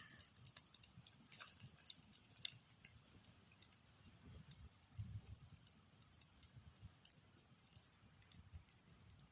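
Wood campfire crackling, with irregular sharp pops and snaps scattered throughout.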